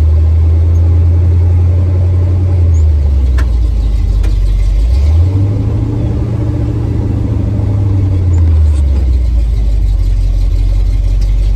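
Classic Ford pickup truck's engine running while driving, heard from inside the cab. The engine note drops about two and a half seconds in, rises again as it pulls harder about five seconds in, and drops back near nine seconds.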